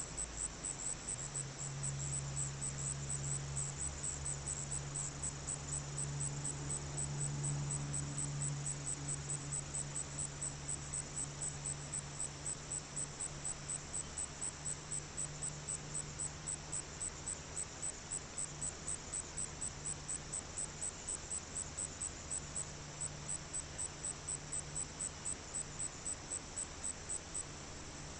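Insects chirping in a steady rhythm, about three high-pitched pulses a second, over a low steady hum that is louder in the first half.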